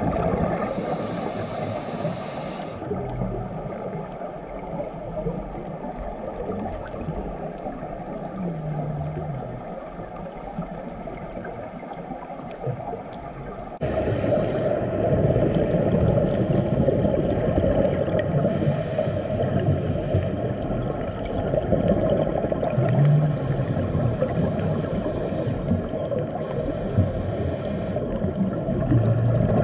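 Muffled underwater noise heard through a diving camera's housing: a dense low rumble of water, with short hissing, bubbling bursts every few seconds from a scuba diver's regulator breathing. The noise gets louder about halfway through, at a cut to another clip.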